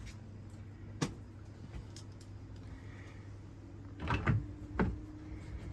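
Caravan roof skylight hatch parts being handled and fitted: a sharp click about a second in, then a short cluster of knocks and rattles near the end.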